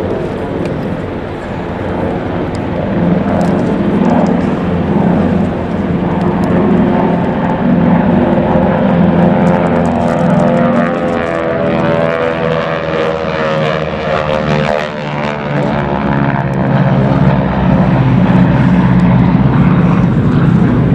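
Three North American Harvard (T-6 Texan) trainers flying past in formation, their nine-cylinder Pratt & Whitney R-1340 Wasp radial engines and propellers droning steadily. The engine note bends in pitch about halfway through as they pass.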